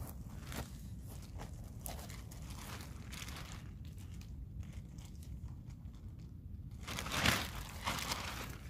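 A silvery plastic sheet crinkling loudly as it is shaken out, starting about two-thirds of the way in. Before that, a few soft steps on dry pine needles.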